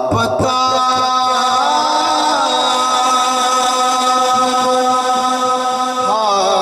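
A man singing a naat into a microphone with no instruments, in long held notes broken by wavering, ornamented turns.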